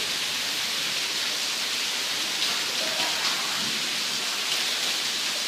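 Heavy rain pouring onto wet paving, a steady, dense hiss of falling and splashing drops.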